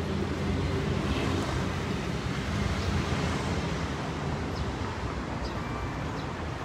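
Steady outdoor background rumble of street traffic, with wind buffeting the microphone.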